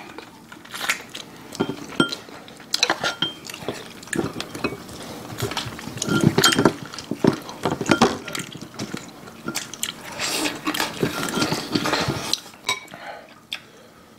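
Chopsticks clicking and clinking against ceramic bowls and plates, mixed with wet sounds of saucy braised pork backbone being picked apart and eaten. The clatter is busiest in the middle and again toward the end.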